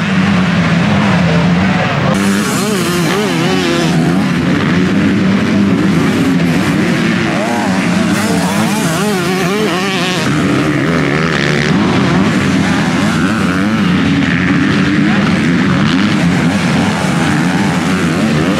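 Several motocross motorcycles racing together, their engines revving up and down over the track. The overlapping engine pitches keep wavering, rising and falling.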